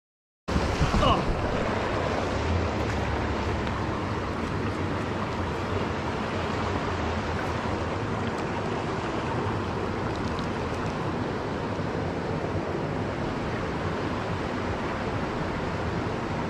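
Steady rush of a shallow creek's water running over concrete and rock close to the microphone, cutting in suddenly about half a second in.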